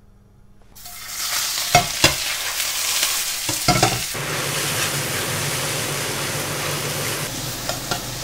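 Sliced lamb and spring onion stir-frying in very hot groundnut oil in a stainless steel wok. The sizzling starts about a second in and then keeps up steadily, with a few sharp knocks of the metal spatula against the wok.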